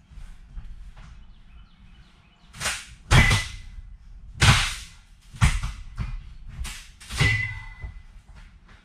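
Metal school-bus seat frames banging and clanking as they are wrenched loose from the floor: about seven loud knocks starting a little under three seconds in, two of them with a short ring.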